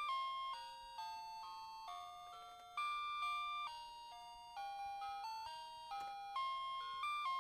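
Background music: a simple melody of clear single notes, each struck and fading, with no beat underneath.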